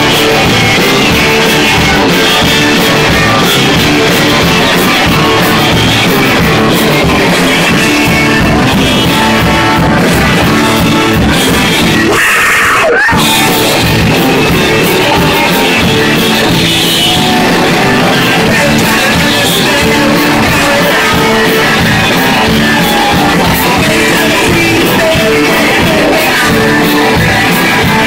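Live rock and roll band playing loud, with electric guitars, keyboard, drums and a singer. The band drops out briefly about halfway through, then comes back in.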